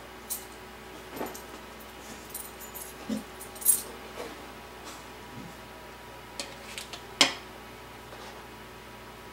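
Small metal tools and parts clicking and clinking on a workbench during soldering work: several separate light taps, the two loudest about three and a half and seven seconds in.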